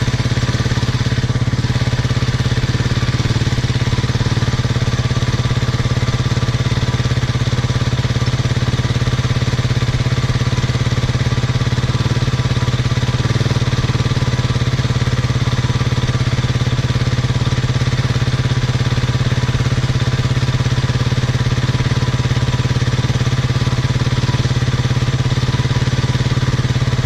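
Husqvarna TE250 enduro motorcycle engine idling steadily on the choke, warming up after a cold start on a bike that hasn't run for a while.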